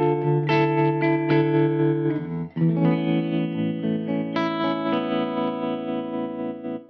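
Electric guitar chords played through an MXR tremolo pedal, the volume pulsing. About two and a half seconds in a new chord rings on, and near the end the pulsing deepens into deep chops as the depth goes towards full.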